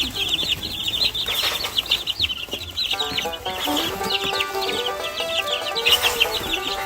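A flock of two-week-old Barred Rock chicks peeping constantly in rapid, high-pitched chirps. Background music comes in about three seconds in.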